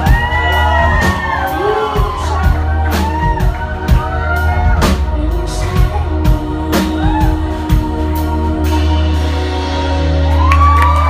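Live band music: a woman sings arching, gliding phrases over a steady deep bass and a drum kit. The drums stop about nine seconds in, leaving held tones.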